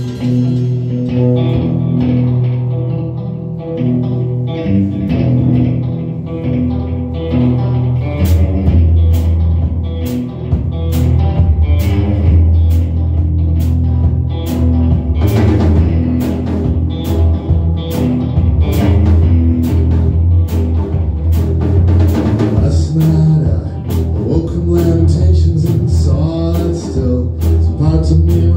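Power trio playing loud rock: electric guitar and bass guitar carry a sparse opening, then the drum kit comes in fully about eight seconds in with steady cymbal and drum hits.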